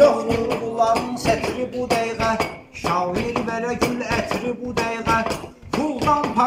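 Meyxana backing music playing: a steady percussive beat under sustained tones and a bending melodic line, with two brief dips.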